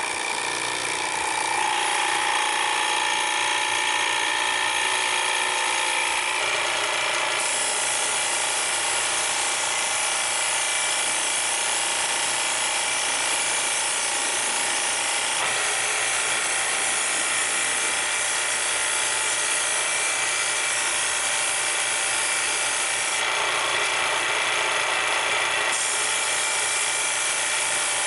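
Motor-driven cleaning machine switched on abruptly and running steadily: a high motor whine with several steady tones over a hiss.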